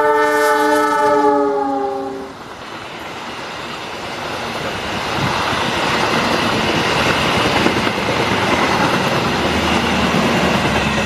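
CC 206 diesel locomotive's horn sounding a long blast, the semboyan 35 warning signal, which cuts off about two seconds in. The train's cars then roll past close by, and the rumble and wheel clatter on the rails build up and stay loud.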